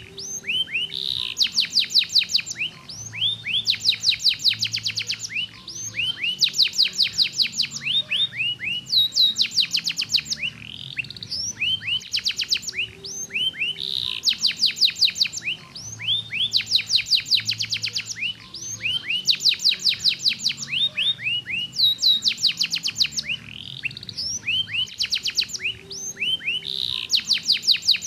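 Domestic canary singing a continuous song of fast high trills and rolls, each phrase a rapid run of repeated notes, some sweeping downward, following one another with only brief pauses.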